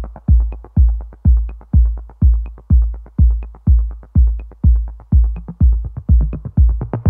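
Electronic background music: a heavy kick drum beating steadily about twice a second, with light ticking percussion between the beats.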